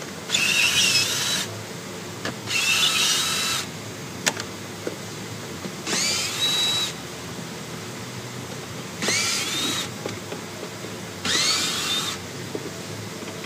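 Cordless drill with a socket run in five short bursts of about a second each, every burst a rising whine as the motor spins up, backing out the console's 10mm bolts.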